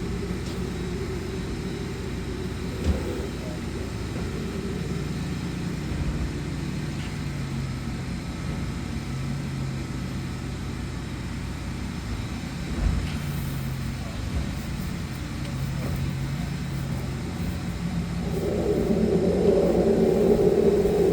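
Sewer jetter's engine and high-pressure pump running steadily while the line is jetted at about 4,000 psi, a low engine hum that grows louder near the end.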